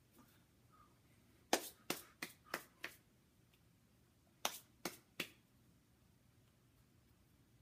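Hands slapping against each other in sharp strikes while signing: five quick slaps in about a second and a half, a pause, then three more.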